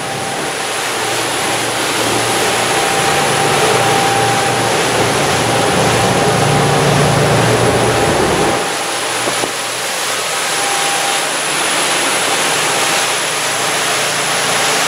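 A sportfishing boat running at speed: a steady rush of wind on the microphone over the drone of its engines and water. The low part of the hum drops away a little over halfway through.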